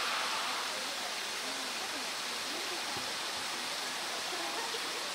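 Steady rushing noise of running water, with faint distant voices over it.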